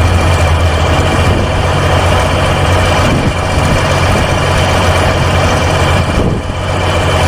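Heavy engine running steadily at idle, a deep even hum with no revving.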